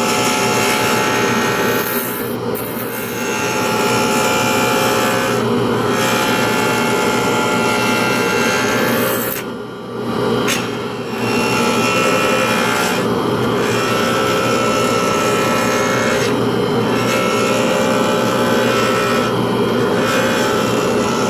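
Small motor-driven lathe spinning a pen blank while a hand tool cuts and scrapes it. The motor runs steadily under the cutting, which breaks off briefly every few seconds, with a longer pause about ten seconds in.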